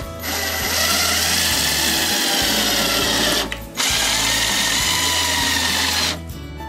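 Power drill driving screws through wooden slats into the lumber frame beneath. The motor runs in two long spells, about three seconds and then about two, with a brief stop between.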